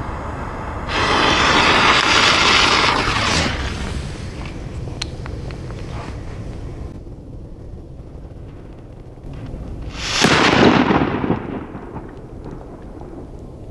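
A Raudi Tipo C match cracker struck alight, its head flaring with a loud hiss for about two and a half seconds. About ten seconds in, the cracker goes off with a bang that fades over about a second.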